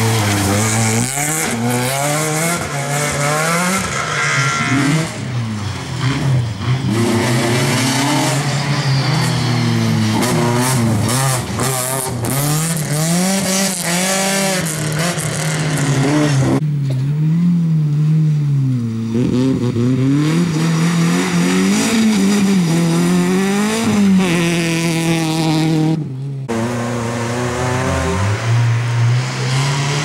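Rally cars' engines revving hard, one car after another: the engine note climbs and drops again and again through gear changes and lifts. The sound changes abruptly to a different car about 17 and 26 seconds in.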